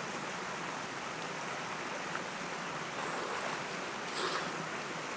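Steady rushing of a flowing river, with some light splashing about four seconds in as a person moves in the water.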